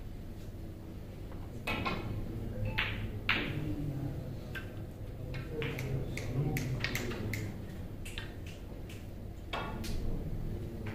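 Snooker balls and cue clicking: about a dozen sharp, irregular clicks with a short ring, the loudest about three seconds in, over a steady low hum.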